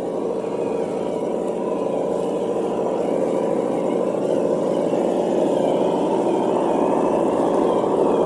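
Reely sound module in a Traxxas TRX-4 Bronco RC crawler playing a simulated engine sound through its small speaker, running steadily and slowly growing louder, with a fainter wavering whine above it.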